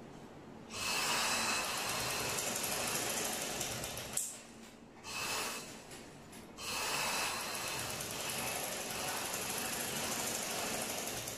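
Motor-driven black domestic sewing machine stitching trouser fabric. It runs for about three seconds, stops, gives a short burst, then runs steadily again for about five seconds.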